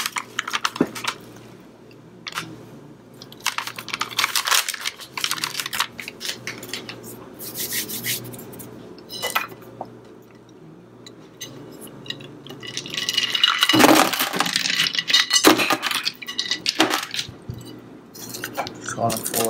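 Kitchen handling sounds: a plastic bag of flour rustling as it is shaken over a glass mixing bowl, with scattered clinks and knocks of dishes. About 13 seconds in, a louder rushing noise lasts two or three seconds, with a few more clinks near the end.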